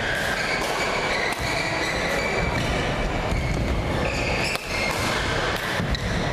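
Badminton rally: sharp racket strikes on the shuttlecock about once a second, and short squeaks of court shoes on the floor, over a steady low rumble in the hall.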